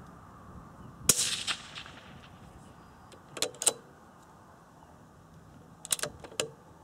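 A single shot from a moderated CZ .17 HMR bolt-action rifle about a second in, sharp with a short ringing tail. Two short clusters of mechanical clicks follow, a couple of seconds apart, as the rifle is handled.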